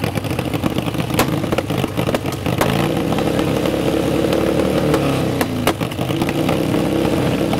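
Custom motorcycle engine running through a short black megaphone-style exhaust after a jump start from a pickup's battery. It is revved up about three seconds in, held for a couple of seconds, then drops back to idle.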